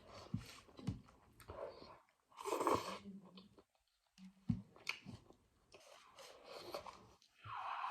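A person chewing and eating noodle soup with vegetables, in several separate mouthfuls.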